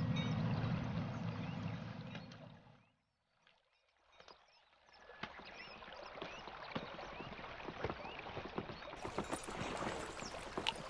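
A low rumble fades out over the first three seconds. After about a second of silence, water sounds rise, with many small clicks and short chirps scattered through them.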